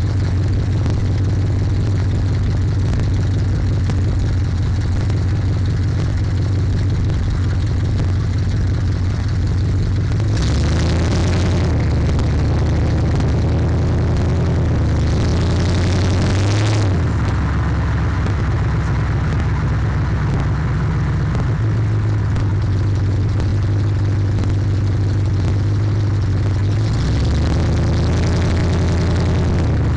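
A loud car engine and exhaust recorded on the car itself, distorted by the overloaded microphone. It runs steadily as the car cruises, with its pitch shifting up and down several times and surges of throttle about a third of the way in, again about halfway, and near the end.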